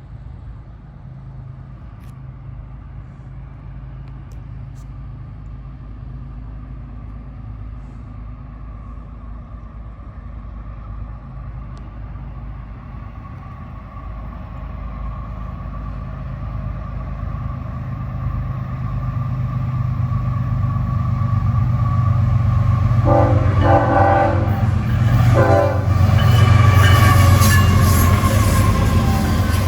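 An approaching CSX freight train led by GE ES44AH and ES40DC diesel locomotives, their engines rumbling and growing steadily louder. About 23 s in, the locomotive air horn sounds a long blast and then a short one. Near the end, wheel and rail noise builds as the lead units pass.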